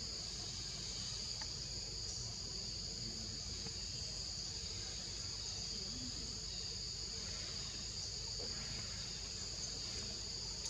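Insects in a continuous, steady high-pitched chorus, with a low rumble underneath.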